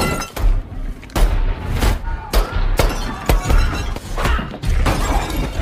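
Movie fight sound effects: a quick run of punches and heavy thuds, with glass and crockery shattering, and grunting voices in between.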